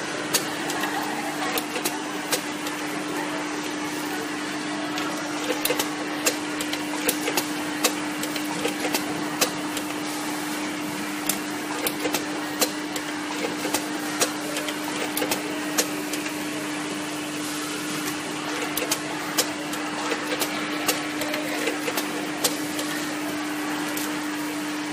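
Automatic cable tie tying machine with its vibratory bowl feeder running: a steady hum with sharp clicks at irregular intervals, roughly one a second, as ties are fastened around wire harness bundles.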